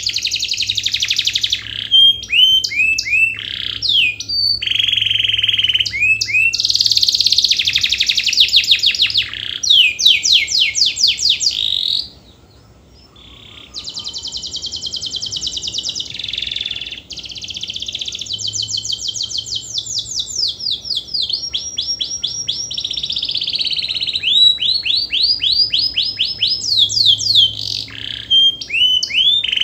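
Domestic canary in full song: a long, continuous run of fast trills and rolling, rapidly repeated notes, with a brief break about twelve seconds in.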